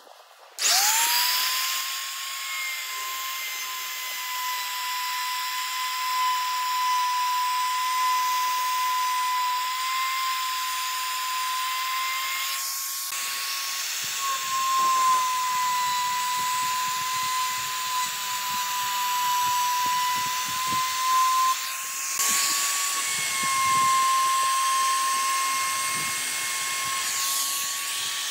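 A high-speed electric power tool spinning up about half a second in, then running with a steady high-pitched whine and hiss, briefly breaking off twice.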